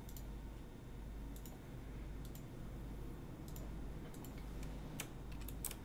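Scattered sharp clicks of someone working a computer, about a dozen at uneven intervals, over a steady low hum.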